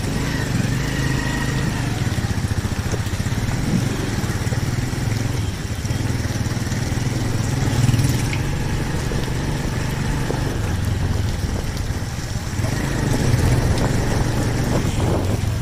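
A small vehicle engine running steadily, a constant low drone throughout.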